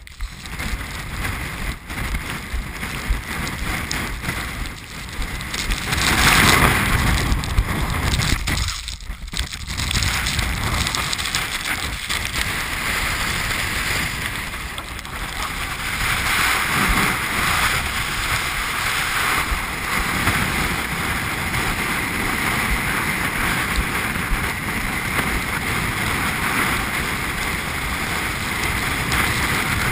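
Gale-force mountain wind buffeting a GoPro's microphone: a continuous rushing blast that swells into a strong gust about six seconds in and drops for a moment just before ten seconds.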